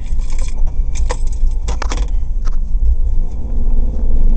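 Ford Escape V6 being driven, heard from inside the cabin: a steady low rumble of engine and road with scattered rattles and clicks. A steady low hum comes in about three seconds in as the revs rise.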